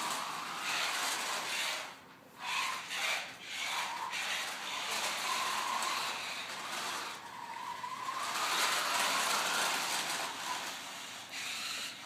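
Toy remote-control car's small electric motor whining as it drives across a tile floor, stopping and starting several times, with the pitch rising and falling as it speeds up and slows.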